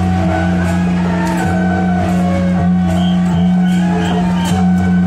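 Music playing over a strong, steady low hum, with a wavering melody and warbling high notes above it.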